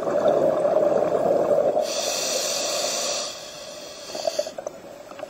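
Scuba diver breathing through a regulator underwater: a sudden loud rush of bubbling, with a high hiss from the regulator joining it about two seconds in. Both die down after about three seconds, leaving a few faint bubble crackles.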